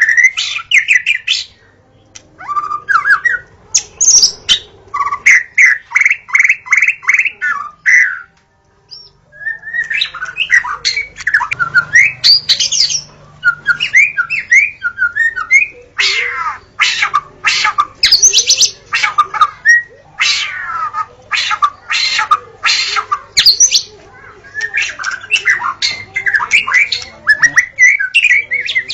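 Wild white-rumped shama singing a long, varied song of clear whistles, fast trills and harsh notes, phrase after phrase. A few seconds in comes a quick run of about nine evenly repeated notes, and there is a brief pause about a third of the way through.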